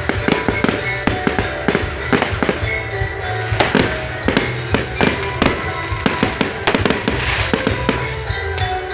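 Aerial fireworks going off in quick succession, many sharp bangs and crackles a second overlapping one another, with music playing underneath.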